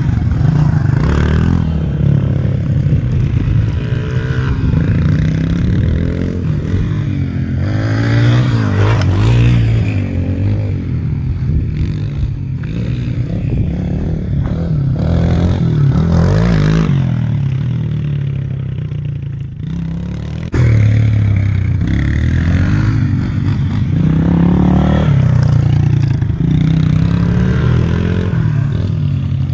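Small dirt bikes riding a dirt track, their engines repeatedly revving up and easing off as they accelerate and slow around the course. The loudness jumps suddenly about twenty seconds in.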